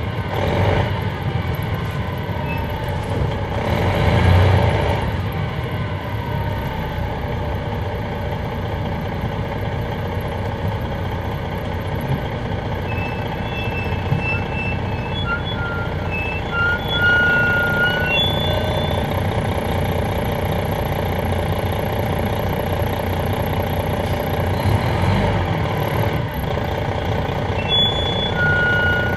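Detroit Diesel Series 60 inline-six diesel of an MCI D4000 coach running, heard from inside the rear of the bus, swelling louder about four seconds in. A few short high beeps sound partway through.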